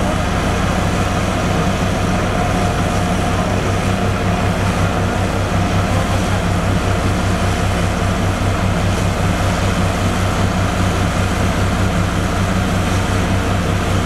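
Diesel engine of a Liugong 6122E single-drum roller compactor running steadily under load as the roller travels, a loud low drone with a fast, even pulse.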